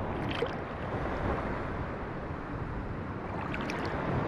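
Sea water lapping and sloshing around a camera held at the surface, with wind on the microphone, and a few small splashes about a third of a second in and near the end.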